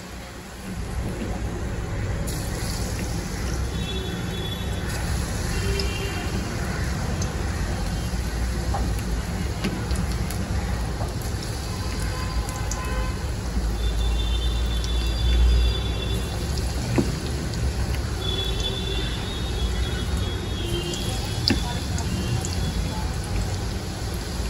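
Background music with short high notes now and then, over a steady hiss.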